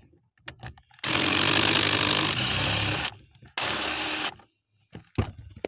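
Power driver spinning a bolt out of a car's steering column mount with a 12 mm socket. It runs steadily for about two seconds, stops briefly, then gives a second short burst of under a second.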